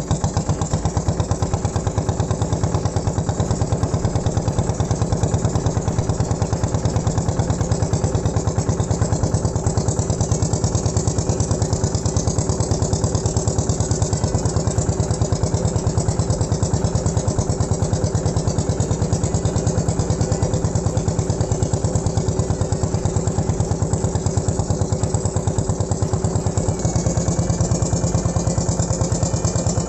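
Wooden river boat's engine running steadily under way, with a fast, even chug.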